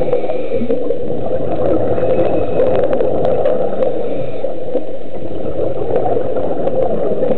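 Underwater ambience heard through a camera's waterproof housing: a steady, muffled rushing with scattered faint clicks, with a scuba diver's regulator bubbles in the water.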